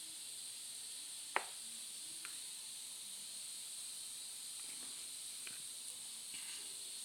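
Faint steady high hiss with one sharp click about a second and a half in, and a few faint ticks near the end.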